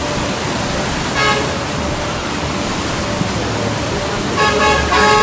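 Muddy floodwater of a flash flood rushing through a river channel, a steady noise of water. A car horn sounds briefly about a second in and again for nearly a second near the end.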